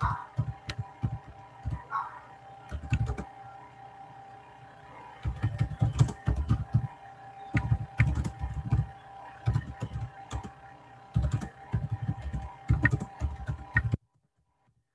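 Typing on a computer keyboard: uneven bursts of keystrokes with short pauses between them, over a faint steady hum. It stops abruptly near the end.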